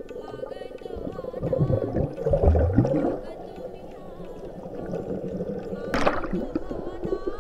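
Muffled underwater gurgling and sloshing picked up by a submerged camera, with the water churning loudest from about one and a half to three seconds in. There is a sharp knock about six seconds in.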